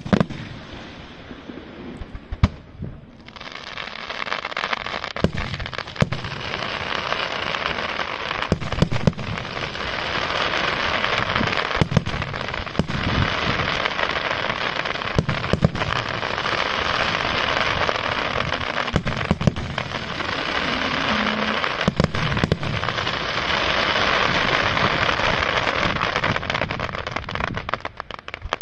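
Aerial firework shells bursting in a rapid string of booms, over a dense, even crackle that sets in about three seconds in.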